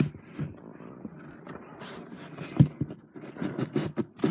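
Irregular scraping and knocking, with one sharp thump about two and a half seconds in.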